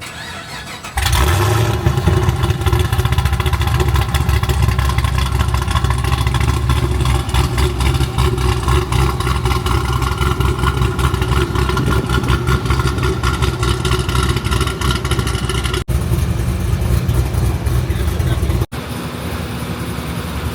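A car engine starts about a second in and runs loud and steady at a fast idle, a little quieter near the end.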